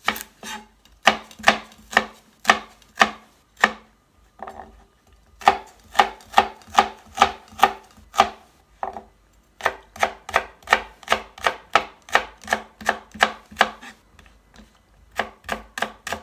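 Knife chopping an onion on a cutting board: runs of sharp, evenly spaced strokes, about two to three a second, with short pauses between the runs.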